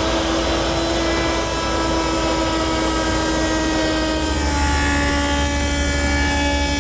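Table-mounted router running at a steady high whine while cutting a decorative profile on base molding stock; its pitch sags slightly about four and a half seconds in.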